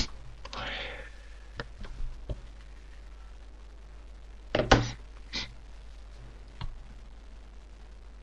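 A few scattered knocks and clicks, the loudest a cluster about four and a half seconds in, with a short rustle about half a second in, over a low steady hum.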